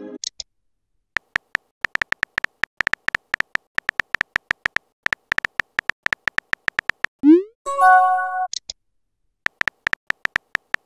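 Rapid keyboard tap clicks from a texting app as a message is typed letter by letter. About seven seconds in comes a short rising whoosh and a chime of several tones as the message is sent, and then the typing clicks start again.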